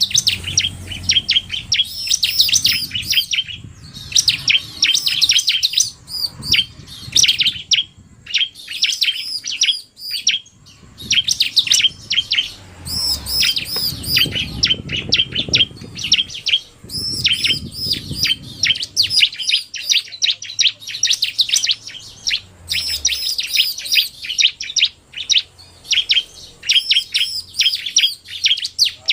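Ciblek (bar-winged prinias), a male and a female, calling in rapid, fast-repeated sharp chirps that run almost without pause, with a few short breaks.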